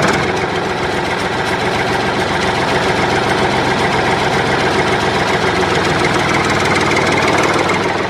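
Small engine running steadily at a fast, even idle, a dense rapid chatter of firing pulses.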